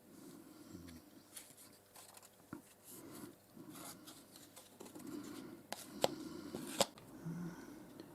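Clamps and hand tools being handled on a workbench as a filled copper patch is clamped up: scattered light clicks and scrapes, with two sharp metallic clicks about six and seven seconds in.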